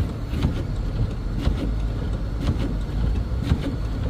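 Car driving on a snowy road, heard from inside the cabin: a steady low rumble with frequent short knocks.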